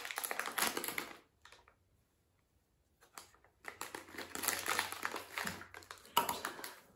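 Foil blind-box wrapper crinkling and tearing as it is pulled open by hand. It stops for about two seconds in the middle, then starts again.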